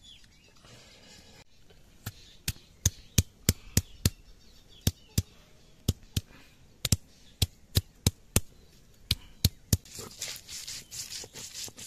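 A stone muller pounds ginger and garlic cloves on a flat stone grinding slab (sil-batta), giving about twenty sharp knocks at roughly two a second that start about two seconds in. About ten seconds in, the knocks give way to a steady scraping rub as the crushed ginger and garlic are ground into paste.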